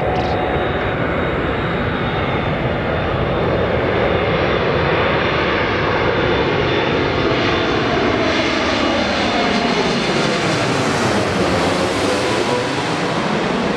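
Boeing 747-8F freighter's four GEnx-2B turbofan engines on final approach at approach power, passing low overhead: a loud, steady jet noise whose tones sweep down and back up as the aircraft goes over near the end, the hiss at its brightest then.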